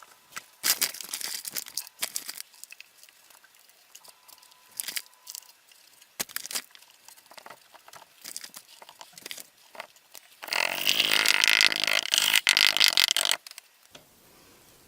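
Workshop handling sounds: scattered taps, clicks and scrapes of tools and parts for about ten seconds, then about three seconds of a small powered tool running with a steady pitched whir, cutting off suddenly.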